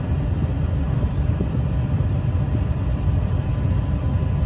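Trane XB80 gas furnace running with its burners lit: a steady low rumble, with the blower not yet running.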